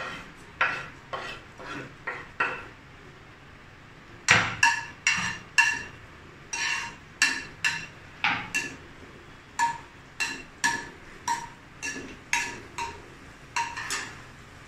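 Steel spoon striking and scraping a stainless steel frying pan while stirring whole red chillies in oil: a series of ringing metallic clinks, lighter at first and louder and more frequent from about four seconds in.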